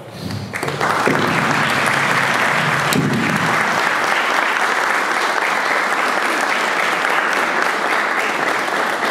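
A roomful of guests applauding, swelling up in the first second and then holding steady.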